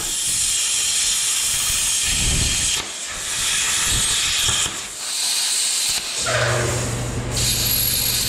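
Plasma cutter cutting steel: a loud hiss of air and arc in several runs with short breaks between them. A steady low hum comes in about six seconds in.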